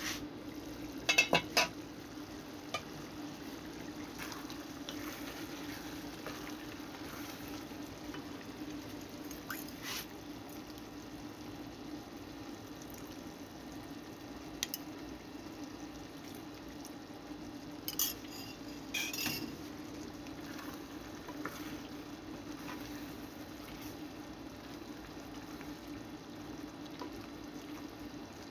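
Aluminium pot lid clinking several times as it is lifted off about a second in. After that, a stew simmers in the pot and is stirred with a wooden spatula, with a few scrapes and clinks against the pot around the middle, over a steady low hum.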